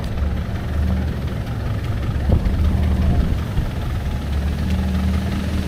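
A vehicle engine idling nearby: a steady low rumble.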